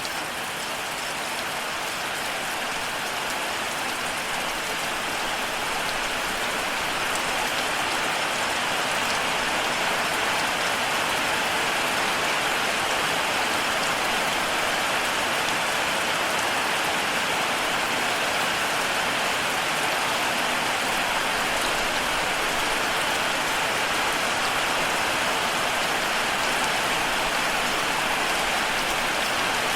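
Steady rain falling, a dense even patter that grows a little louder over the first several seconds and then holds steady.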